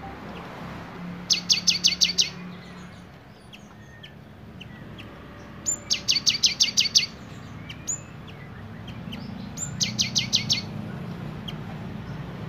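Cinereous tit (gelatik batu) singing: three bursts of sharp, high notes repeated quickly, about eight a second, each burst lasting about a second.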